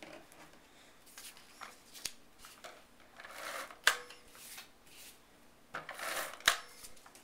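Scotch ATG adhesive tape gun run along cardstock to lay down tape: several rasping passes, each ending in a sharp click as the gun is lifted and the tape cuts off. The two loudest passes come about halfway through and near the end.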